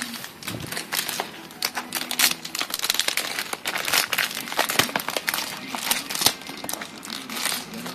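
Clear plastic bag crinkling as it is handled and worked off a cardboard ration box, a dense run of irregular crackles.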